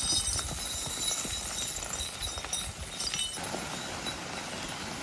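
Irregular clopping steps on hard ground, a run of short low knocks that changes about three seconds in, with faint high bird or insect tones behind.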